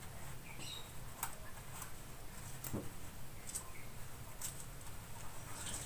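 A small white kitten being washed by hand on a tiled floor: faint scattered wet ticks and patters, with a tiny high squeak from the kitten about half a second in and another fainter one near the end.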